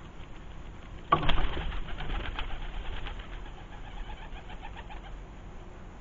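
Pigeon's wings flapping at a hanging seed feeder: a sudden burst of rapid wingbeats about a second in, fading away over the next few seconds.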